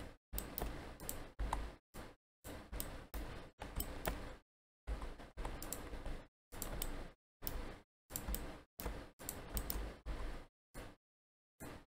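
Irregular clicking of a computer keyboard and mouse, in short separate bursts that start and stop abruptly, with a low hum under each burst.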